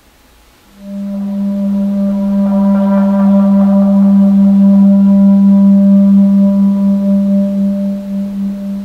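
Clarinet holding one long, low sustained note that starts about a second in. Brighter overtones swell in the middle of the note, and its loudness wavers toward the end.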